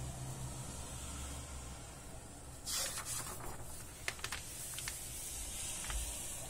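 A magazine page being turned, a short papery swish about three seconds in, followed by a few crisp crackles of paper as a hand presses the new spread flat. A faint steady hiss runs underneath.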